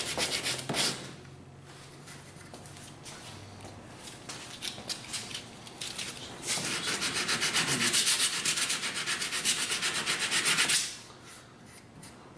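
Sandpaper being rubbed by hand in quick back-and-forth strokes on the wooden forend of a muzzleloading rifle stock, blending the wood to fit the nose cap. A short run of strokes at the start, then lighter rubbing, then a steady run of strokes for about four seconds that stops shortly before the end.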